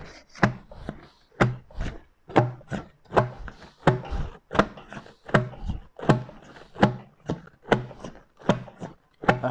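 Metal sorbetes canister set in crushed ice being churned with a wire-mesh paddle, knocking and scraping about twice a second. The ice cream has firmed up, which is the stage where the churning turns stiff.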